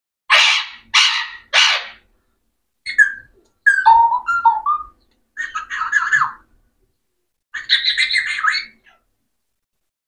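Alexandrine parakeet calling: three loud, harsh squawks in quick succession, then a run of shorter squeaky, gliding chatter in three bursts.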